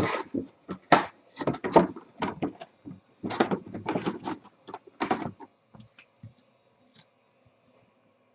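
Cards and their packaging being handled: irregular rustling and clicking strokes that thin out after about five seconds.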